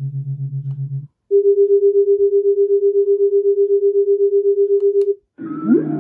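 White noise machine playing its 'hypnotic' tone tracks, changing tune twice. A low tone pulses about eight times a second until about a second in. After a brief gap a higher tone pulses at the same rate for about four seconds. After another brief gap a gliding whale-song track starts near the end.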